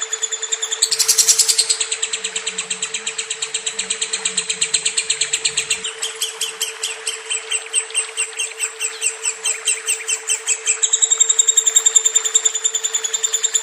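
Lovebird singing a long, fast chattering trill of high repeated notes, about six a second, over a steady hum.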